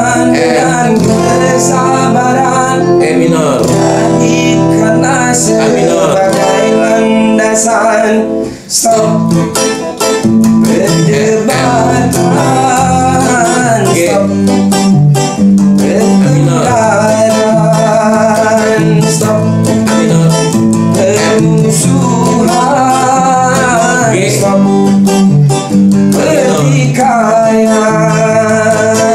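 Two electric guitars playing dangdut: a lead guitar melody with bent, sliding notes over a low, repeating rhythm part.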